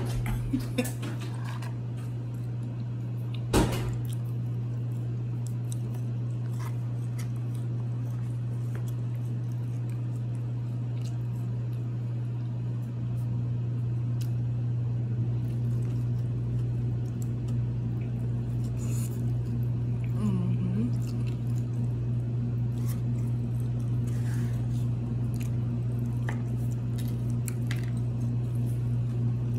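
Someone eating a chicken sandwich: soft chewing and food-box handling noises over a steady low hum, with a sharp click about three and a half seconds in.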